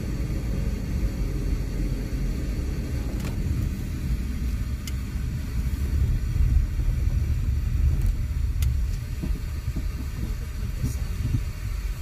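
Steady low rumble of a car driving on a paved road, heard from inside the cabin: road and engine noise.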